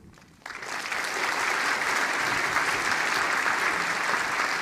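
Audience applauding at the end of a talk. It breaks out about half a second in and goes on steadily.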